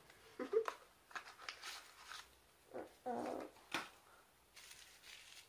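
A small cardboard box being opened and its contents handled: light rustles and taps, with a sharp tap about four seconds in. Two short voice-like sounds come about half a second and three seconds in.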